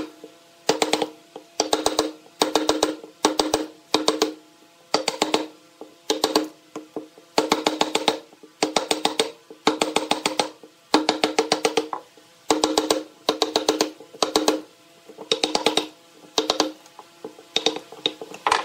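Wooden mallet striking a chisel as it cuts into a pine block: short bursts of rapid, sharp wooden knocks, about one or two bursts a second, each knock ringing with a hollow tone.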